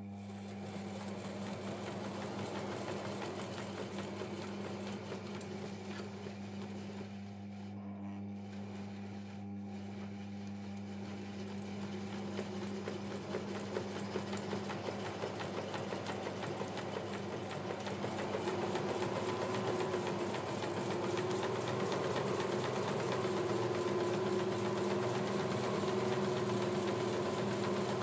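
Homemade plywood belt sander driven by a washing-machine motor, running with nothing on the belt. It gives a steady motor hum with the belt whirring over its rollers. It grows louder partway through, and a higher tone joins later.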